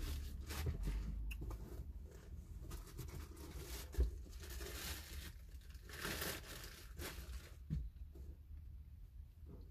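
Irregular rustling and crinkling noise, with a soft knock about four seconds in and another near the end.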